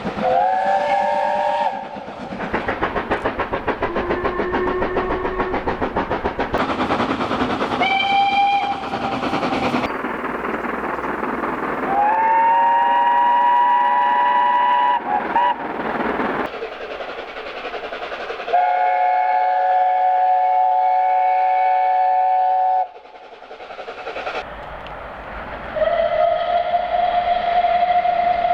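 A run of British steam locomotive whistles from different engines, cut one after another: about six blasts, most of them multi-note chime whistles sounding several steady notes at once, the last a single-note whistle near the end. Between the blasts comes the rhythmic beat and rail noise of steam trains on the move.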